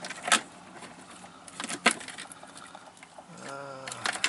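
Plastic wiring-harness connectors and wires being handled and plugged in behind a car's lower dash panel: sharp clicks and light rattling, with two loud clicks about a second and a half apart. A brief low hum of a man's voice near the end.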